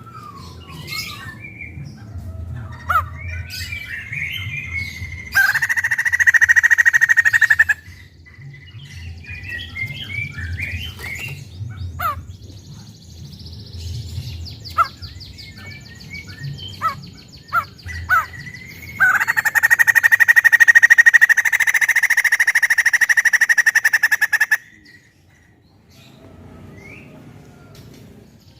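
White-crested laughingthrush calling loudly: scattered chirps and short whistles, a fast trill, and twice a long, harsh, rapidly pulsed rattling chatter, the first about five seconds in lasting some two seconds, the second about nineteen seconds in lasting some five seconds.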